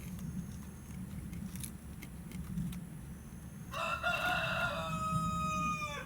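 A rooster crowing once, about four seconds in: one long call that drops in pitch at the end, over a steady low background hum.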